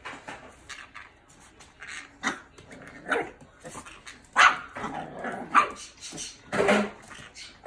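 Chihuahua barking repeatedly in a string of short barks, the loudest about halfway through.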